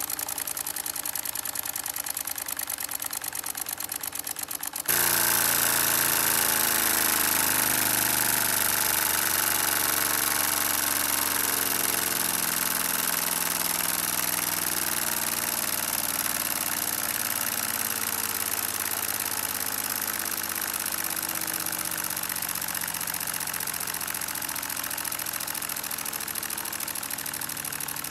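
Lego pneumatic flat-twin engine running on compressed air: a fast, even chatter of its cylinders and valves with air hissing out. About five seconds in it gets suddenly louder and hissier, then fades slowly.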